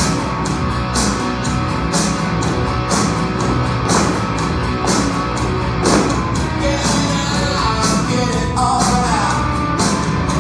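Rock song with a singer and a steady drum beat.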